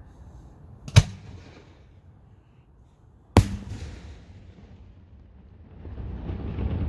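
Two loud aerial firework bursts about two and a half seconds apart, each a sharp bang with a brief echoing tail. Near the end a rising rush of noise builds.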